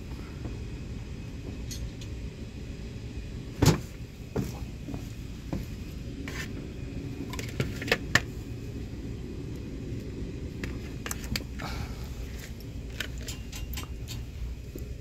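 Steady low mechanical hum with scattered sharp clicks and knocks: a loud knock about four seconds in, two more around eight seconds, and a run of lighter clicks later.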